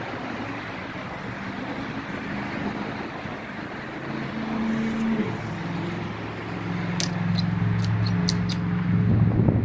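Road traffic: a steady wash of tyre and engine noise from passing vehicles, with one engine's hum growing louder in the last few seconds. A quick run of five or six sharp clicks comes about seven seconds in.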